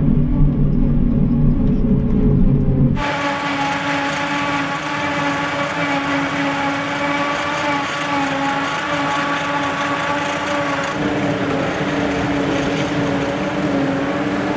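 John Deere 8600i forage harvester heard from inside its cab: a deep, heavy engine rumble. About three seconds in, the sound switches to the machine running, heard from outside, with a steady whine over the engine noise.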